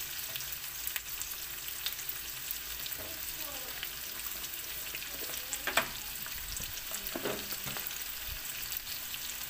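Ground pork with chopped onion and garlic sizzling in hot oil in a wok, with a wooden spatula stirring and scraping the pan. A sharp clack about six seconds in is the loudest sound.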